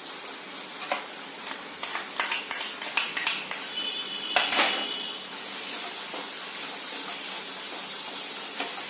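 Turnip sabzi sizzling in a pan of hot oil and spices while a metal spoon stirs it, clicking and scraping against the pan for the first few seconds, with one ringing clink about four and a half seconds in; after that, steady sizzling.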